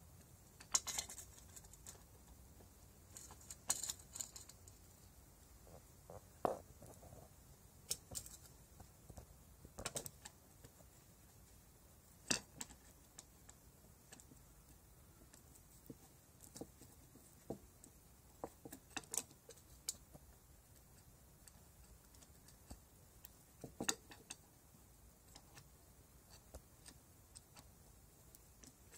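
Faint, irregular clicks and taps of a screwdriver working at a metal hose fitting on a scooter engine, about a dozen spread out, with a couple of slightly longer rustly crackles about one and four seconds in.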